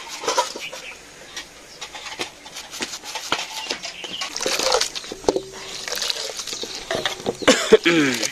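A curved hasiya blade cutting through handfuls of watercress greens over an aluminium basin, a run of crisp cuts and clicks; later, water splashing as the chopped greens are rinsed in the basin. Near the end a short vocal sound slides down in pitch.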